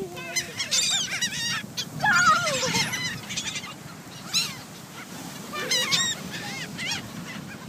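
Gulls calling: short, high, arched cries, repeated by several birds throughout.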